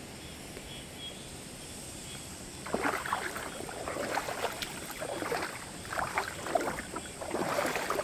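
Feet wading through shallow, stony stream water, with irregular splashes starting about three seconds in.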